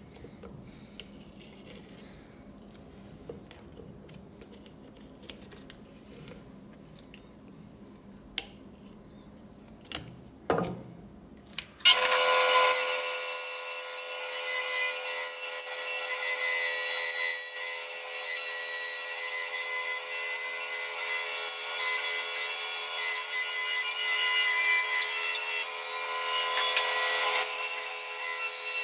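Faint handling sounds with a few light clicks, then, about twelve seconds in, a bandsaw suddenly cutting through a brown mallee burl to cut out a round bowl blank: a loud steady whine under the rasp of the blade in the wood.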